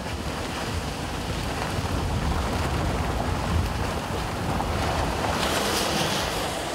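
Steady rushing noise inside a moving car: wind buffeting and low road rumble as it drives on a wet dirt road, with a brighter hiss about five and a half seconds in.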